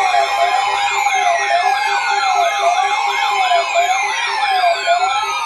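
Layered electronic alert sirens: a fast wail sweeping up and down over and over, several slower tones gliding steadily downward, steady alert tones held underneath and a quick pulsing beep, all sounding at once.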